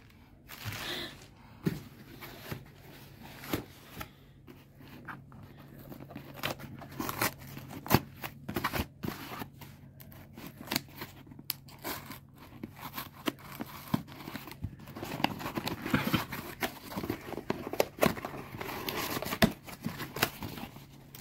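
A plastic courier mailer crinkling and being pulled open, then scissors snipping through the tape of a cardboard shipping box and the cardboard being pulled apart, with irregular rustles, snips and clicks.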